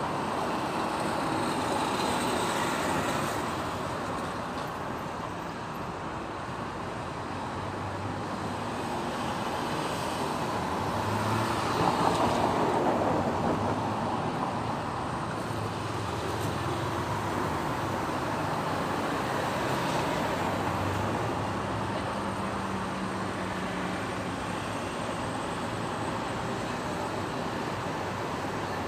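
Busy city road traffic: a steady mix of vehicle engines and tyre noise, with a louder vehicle passing about twelve seconds in.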